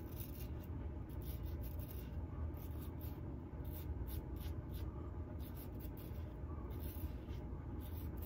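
RazoRock Lupo .95 double-edge safety razor scraping lathered stubble on the chin and neck in a quick series of short strokes.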